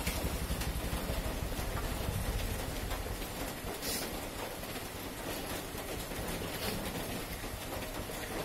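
Electric hair clippers buzzing steadily as they cut along the side of a head. The low buzz eases a little about three seconds in.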